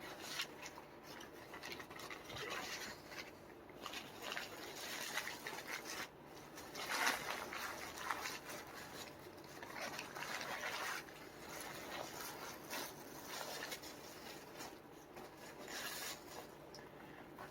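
Faint, irregular rustling and scraping of plastic packaging as an opened slab of bacon is wrapped and closed back up, loudest about seven seconds in and again around ten seconds.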